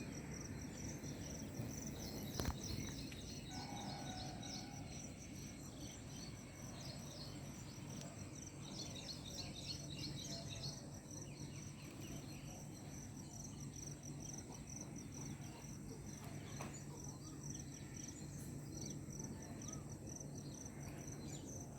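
Faint chirping of small birds in quick trilled bursts, strongest near the start and again around ten seconds in, over a steady high thin note and a steady low hum.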